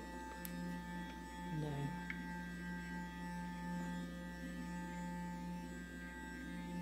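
Clarisonic Mia 2 with a foundation brush head running against the skin, a steady electric buzz with a few thin steady overtones, as it blends in foundation.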